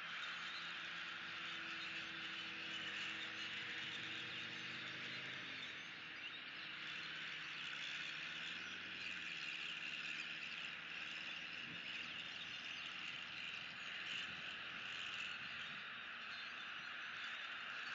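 Steady outdoor chorus of calling frogs and insects, a constant dense chirring. A faint low drone sits under it and fades out about six seconds in.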